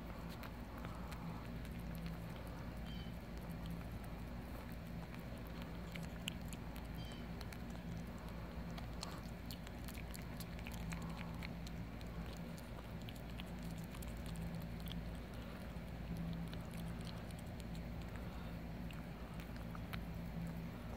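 Kittens licking and chewing a piece of raw turkey giblet, a run of small, irregular wet clicks from tongues and teeth on the meat.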